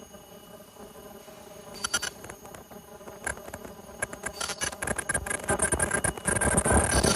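Automatic nonwoven vacuum cleaner bag making machine running: a steady hum, then clicking and rattling that grow denser and louder from about two seconds in.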